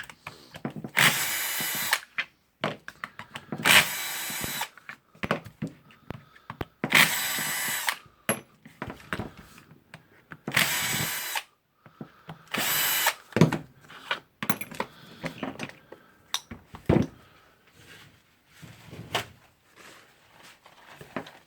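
A power drill-driver running in five short bursts of about a second each, backing out the screws that hold the impact wrench's motor housing and hammer housing together. Light clicks and clinks of metal parts being handled come between the bursts.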